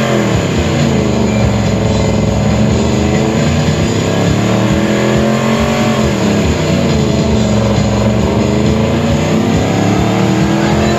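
Ford Crown Victoria's 4.6-litre V8 held at high revs in a standing burnout, the rear tyres spinning in smoke. The revs dip, climb slowly, drop about six seconds in, then climb again near the end.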